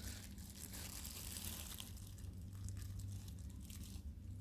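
Faint crinkling and rustling with scattered small clicks, over a steady low hum.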